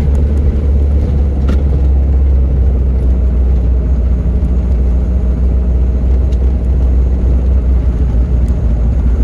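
Engine and road noise of a moving vehicle heard from inside its cabin: a steady low rumble, with one sharp click about a second and a half in.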